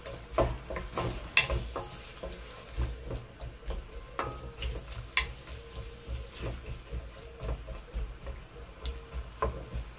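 A wooden spatula stirs diced onions frying in oil in an enamelled steel pan, scraping and tapping against the pan at irregular moments throughout.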